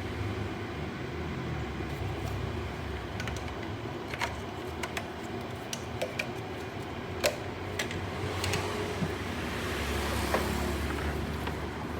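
A car engine idling steadily, with light clicks and knocks scattered through it and a swell of rushing noise about ten seconds in.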